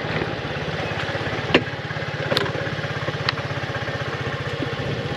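Small engine running steadily at low speed with an even, fast pulse. A few short sharp clicks come on top of it.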